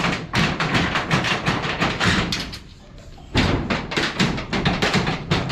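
Rapid knocks, bangs and metal clattering as old corrugated iron roofing sheets are torn off the roof frame, with a short lull a little past halfway and then a loud bang.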